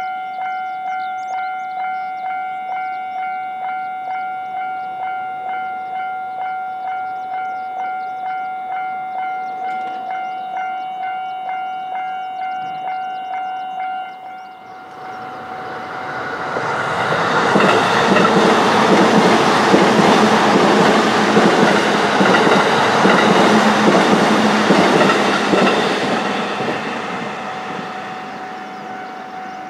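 Japanese level-crossing warning bell ringing about twice a second. About fifteen seconds in, a passing train's running noise and wheel clatter swell up over the bell, hold for about ten seconds and fade, while the bell keeps ringing.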